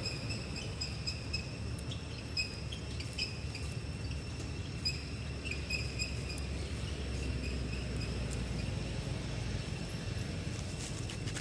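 A steady low rumble of distant road traffic, with short high chirps repeating irregularly over it.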